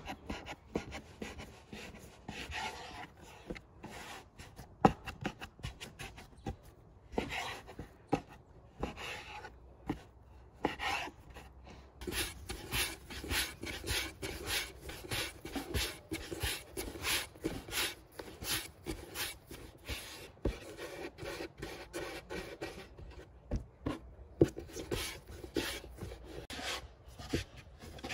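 Hands rolling and rounding portions of soft dough into balls on a floured wooden board: repeated rubbing and scraping strokes with a few light knocks. The strokes become a quick, steady rhythm about halfway through.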